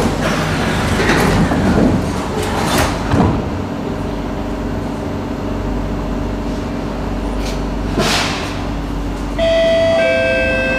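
Sliding doors of a Singapore MRT train closing, with a knock as they meet about three seconds in, then the carriage's steady hum. Near the end a steady electric whine of several tones starts suddenly as the train takes power to pull away.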